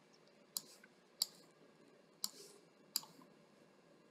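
Four separate computer mouse clicks, sharp and short, about half a second to a second apart, over a faint steady room hum.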